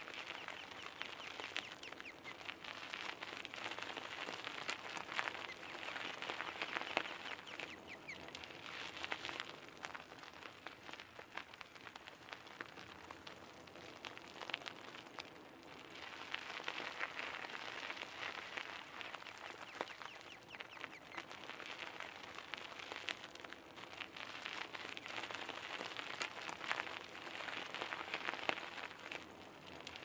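Bicycle tyres rolling over a gravel path: a continuous crunching crackle of small stones under the wheels that swells and eases in waves as the ride goes on.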